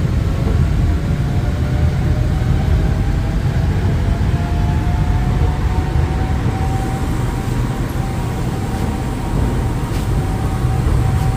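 Cabin noise of an MRT Yellow Line rubber-tyred monorail train running, heard from inside the car: a steady low rumble with a faint whine that slowly rises in pitch.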